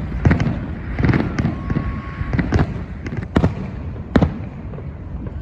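Aerial fireworks going off in a rapid series of sharp bangs over a low rumble, the two loudest blasts coming about three and a half and four seconds in.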